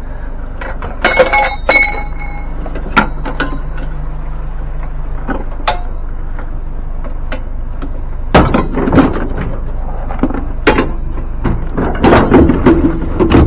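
Scrap metal pieces clanging and banging as they are thrown and shifted into a truck, with a ringing metal clang about a second in and a cluster of knocks in the second half. A steady low rumble runs underneath.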